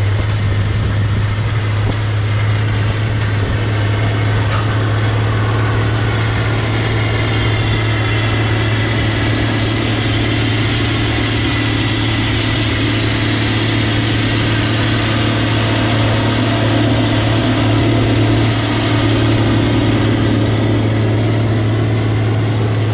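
Steady mechanical hum at constant speed, with one strong low tone and fainter higher tones over it, unchanging in pitch and loudness.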